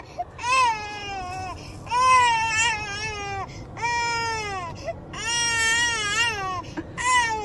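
Infant crying in long drawn-out cries, about five in a row with short breaths between, each cry rising and then falling in pitch.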